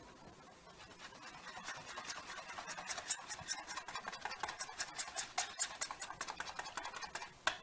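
Wire whisk beating batter in a bowl, quick rhythmic clicking strokes several times a second that build in loudness from about a second in, as liquid is mixed in to thin the batter.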